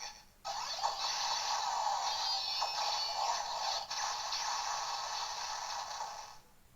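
Electronic sound effects and music from a DX Sengoku Driver toy belt, played through its small built-in speaker during a henshin transformation sequence. They start about half a second in and cut off shortly before the end.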